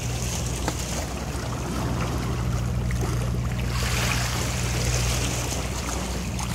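Boat motor droning steadily, under a rush of wind and water that swells a little past the middle.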